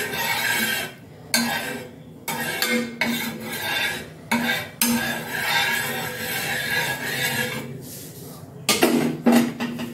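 A flat metal spatula scraping back and forth across a hot tawa griddle, spreading oil in repeated strokes with short pauses between them. A couple of louder metal knocks come near the end.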